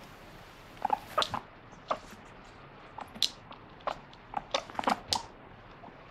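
Guinea pig giving a string of short, sharp squeaks (its "pui pui" calls), a few near the start and a quicker cluster about four to five seconds in: complaining at being denied a treat.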